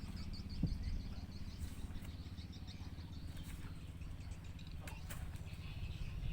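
Birds chirping outdoors: a quick run of small high chirps in the first second, then scattered chirps, over a steady low mechanical hum.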